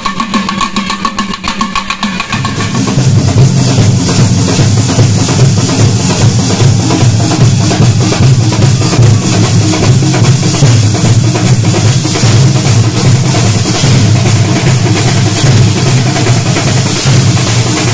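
A festival percussion troupe's drums and metal hand cymbals start playing loudly about two seconds in, with a dense, pounding beat over a steady cymbal wash. Before they start, a motorbike passes close by.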